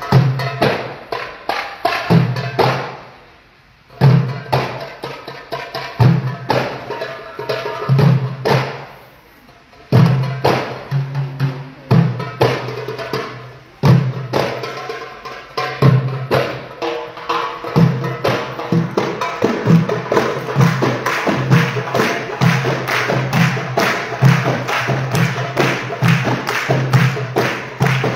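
An Arabic hand-drum ensemble of darbukas (goblet drums) and a frame drum plays a rhythm of deep dum strokes and sharp tek strokes. The playing stops briefly twice in the first ten seconds, then settles into a denser, steady pattern from about halfway through.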